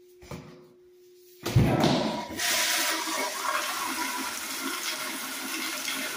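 Toilet flushing: a sudden loud rush of water starts about a second and a half in, then the water swirls and runs steadily down the bowl.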